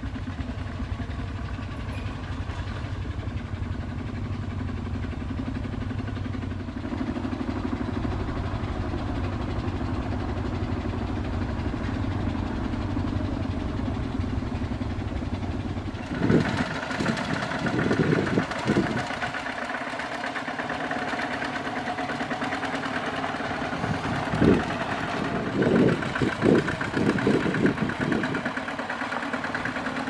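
Single-cylinder diesel engine of a Kubota RT140 walking tractor running steadily while hauling a loaded trailer. About halfway through the sound becomes closer and louder, with a fast regular chatter and a few short low rumbling bursts.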